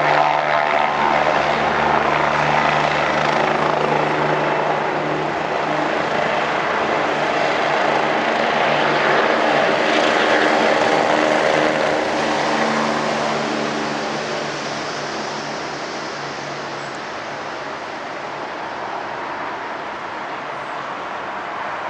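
Helicopter running, a steady rotor and engine noise with a low hum, growing gradually fainter over the second half.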